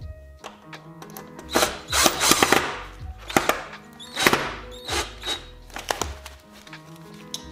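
Background chillhop music with held notes and a bass line, over scattered knocks and rubbing of plastic motorcycle fairing panels being fitted together by hand.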